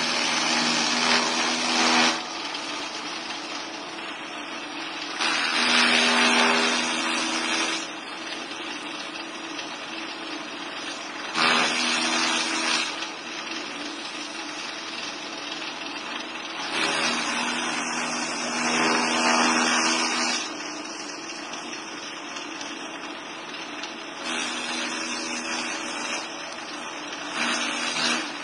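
Small electric 220 V grass chopper (chaff cutter) running steadily while green palm fronds are fed into its blades. It gets louder in five spells of a few seconds each as the fronds are pushed in and chopped.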